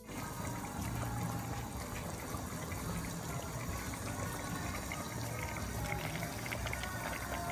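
Steady bubbling of liquid boiling in pots on the stove, spaghetti sauce and pasta water, with faint music underneath.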